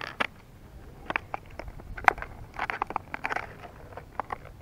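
Plastic lure packaging being handled: a run of sharp clicks and short crinkling crackles as the package is turned over and worked open.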